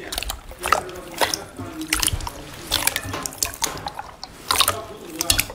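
Clear, glossy slime squeezed and kneaded by hand in a bowl, giving irregular wet squelches and sticky pops.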